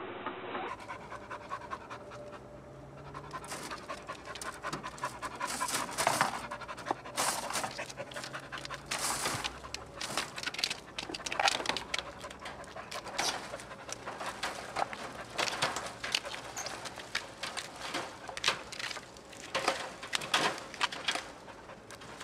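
A dog panting hard, in short ragged bursts of breath every second or two, while climbing a tree trunk.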